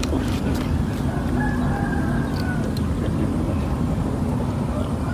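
A rooster crowing faintly once, a long held call, over a steady low rumble. A few light clicks come from cats eating at a metal plate.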